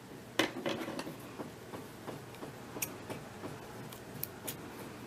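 Scissors being handled and snipping crochet yarn: a tap about half a second in, then faint ticks and a few sharp little clicks of the blades closing.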